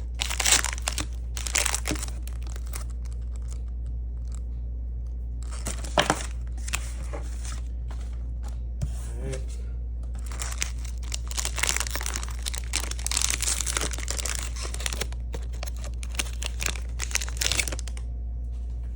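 Plastic wrapper of a basketball trading-card pack crinkling and tearing open in several bursts over a steady low hum.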